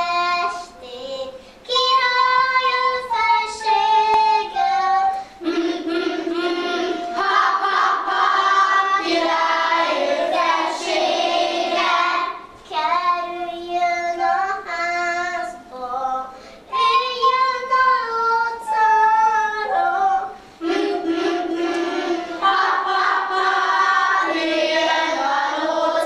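Children singing a song in sustained melodic phrases with short breaths between them, with no instrumental accompaniment.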